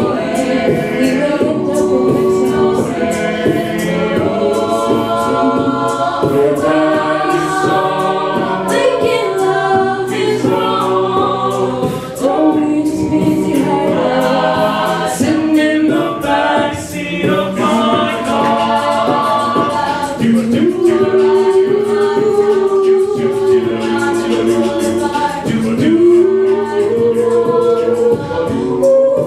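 A mixed-voice a cappella group singing, a woman's solo line over sung backing chords. A beatboxer's vocal percussion keeps a steady beat underneath.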